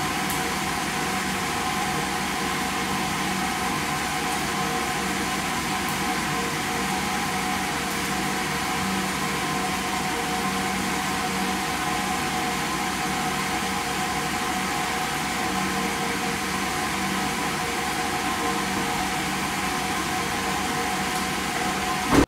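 A 2000 Dodge Ram pickup's engine idling steadily, an even hum with a constant hiss that cuts off suddenly at the end.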